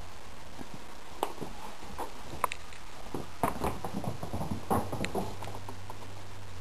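Kurilian bobtail cat running across the floor: a quick, uneven patter of paw thumps that starts about a second in, comes thickest in the middle and stops after about five seconds.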